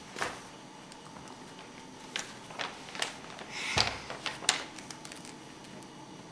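Book and pen being handled on a tabletop: scattered light clicks and paper rustles, with a louder rustle ending in a soft thump just past the middle.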